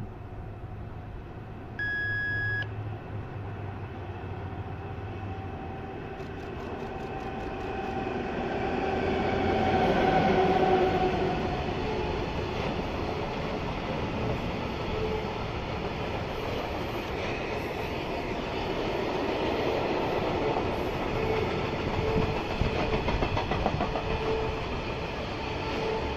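ET22 electric freight locomotive approaching and passing, loudest about ten seconds in, followed by a long rake of scrap-loaded gondola wagons rolling steadily past on the rails. A brief steady high tone sounds about two seconds in.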